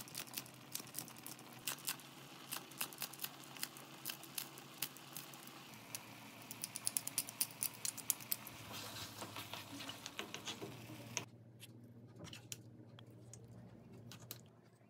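Multi-blade kitchen scissors snipping fresh chili peppers, rapid irregular snips, over a pan of simmering stew. The snipping stops suddenly about 11 seconds in, and only a few faint clicks follow.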